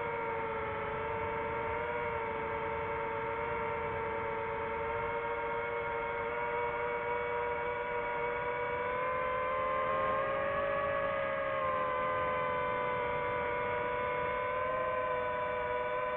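DJI FPV quadcopter's motors and propellers humming steadily in flight, a whine of several close tones that drift slightly and rise a little about ten seconds in.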